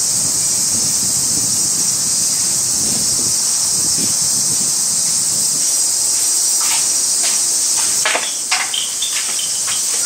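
Cicadas buzzing in one steady, high, unbroken drone. From about two-thirds of the way in, a few light clicks and knocks join it.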